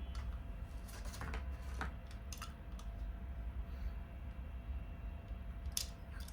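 Several sharp mechanical clicks from handling a toy revolver: a few close together in the first half and a louder single click near the end, over a steady low hum.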